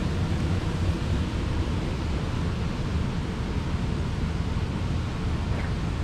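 Steady rush of air with a low rumble from a conservatory's ventilation blowers feeding large sheet-metal ducts.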